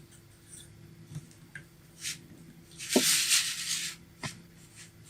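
Hands handling a plastic Lego model: a few light clicks and knocks, and a brief loud scraping rustle about three seconds in.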